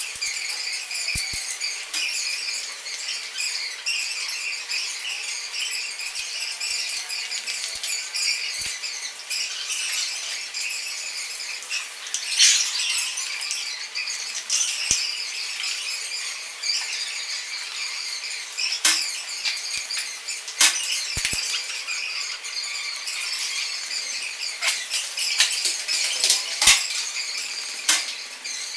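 Broken drinking-glass shards being handled on a hard floor: scattered small clinks and ticks, with a brief clatter about halfway through and a few sharper clicks near the end, over a steady high-pitched whine.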